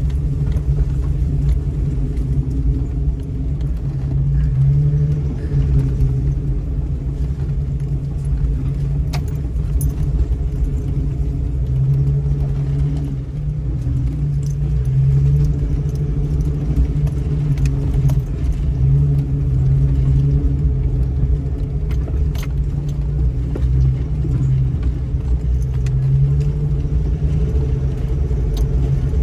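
2000 Jeep Cherokee on 33-inch tyres running slowly down a rough off-road trail: a steady low engine drone with rattles and scattered clicks as the vehicle is jostled.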